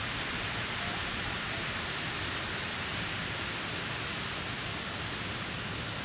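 Steady, even rushing outdoor background noise with no single clear source, and a couple of faint short chirps.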